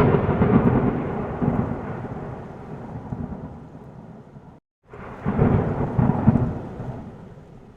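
Thunder in a thunderstorm: one long peal rumbling and fading away, cut off sharply about four and a half seconds in, then a second peal that swells and fades.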